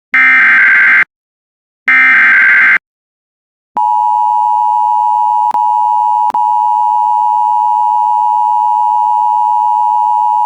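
Emergency Alert System alert. First come two harsh digital SAME header bursts, each about a second long, with a short gap between them: the last two of the three header bursts. About four seconds in, the steady, high EAS attention tone begins, with two brief dropouts early on.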